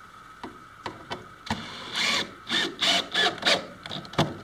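Wooden pieces being handled and fitted onto a plywood kayak frame: a few light knocks, then a run of about five short scraping strokes, and one more knock near the end.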